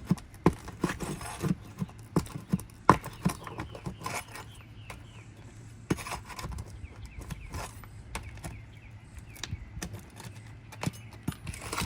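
Roof snake prying under 3-tab asphalt shingles to break their seal strips: irregular sharp knocks, clicks and scrapes, over a faint steady low hum.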